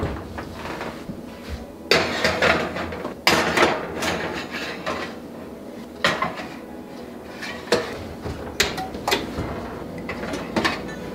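Metal muffin tins clanking and scraping against the wire oven racks as they are slid into the oven: a run of irregular metal knocks and short scrapes.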